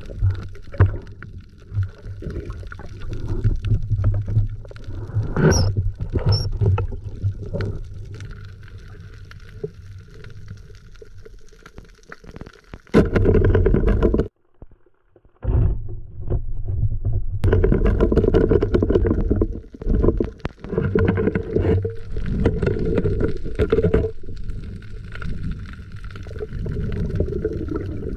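Muffled underwater water noise: low rumbling and sloshing against an underwater camera housing as a spearfisher swims and handles a speared fish. It surges unevenly and drops out almost completely for a moment about halfway through.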